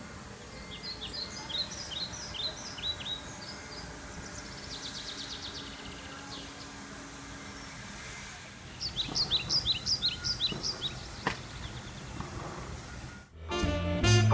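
Songbird singing: two bouts of quick, repeated high chirping notes with a softer trill between them, over steady outdoor background noise.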